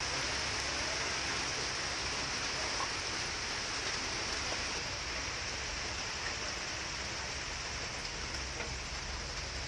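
Green mussels cooking in a pan over a wood fire, giving a steady sizzling hiss with a few faint crackles.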